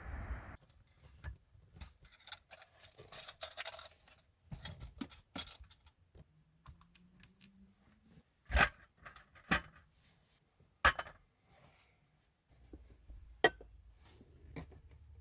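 Objects being handled at close range in a small, quiet space: scattered rustling and light clicks, with four sharp knocks spread through the second half.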